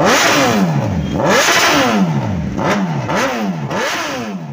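Suzuki Hayabusa's inline-four revved repeatedly through a Brocks 4-2-1 full-system single exhaust, several quick throttle blips about a second apart, each rising sharply in pitch and falling back toward idle.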